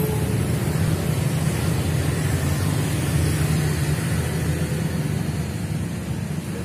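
Steady low engine rumble with a faint hiss over it.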